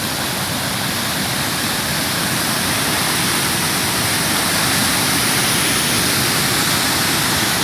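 Steady, loud rush of water from heavy rain and floodwater.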